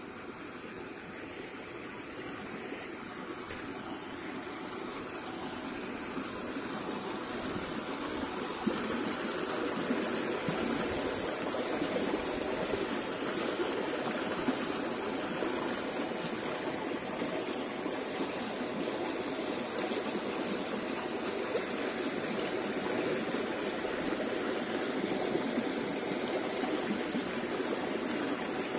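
Shallow river water rushing and splashing over stones in a rocky riffle: a steady rush that grows louder over the first several seconds, then holds steady.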